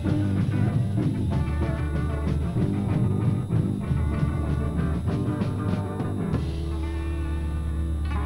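Live rock band playing: a drum kit with cymbals over electric guitars and bass. About six seconds in, the drums stop and a held guitar chord rings on over the bass.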